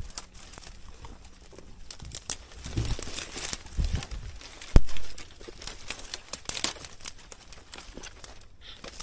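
Footsteps crunching and rustling through dry grass and undergrowth, with irregular crackling of twigs and leaves and a single sharp thump about five seconds in.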